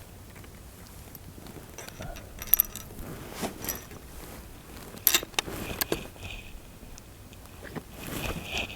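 Sharp mechanical clicks and rattles of shooting gear being handled, in small clusters about two and a half and five seconds in.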